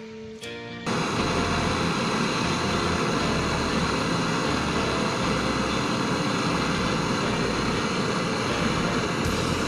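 Gas brazing torch burning with a steady, loud hiss as a refrigerator pipe joint is brazed; it starts abruptly about a second in, as guitar music cuts off.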